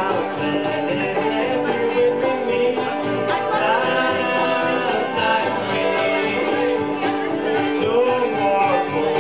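Bluegrass band playing live: fiddle, five-string banjo, acoustic guitar and upright bass together in a steady, driving tune.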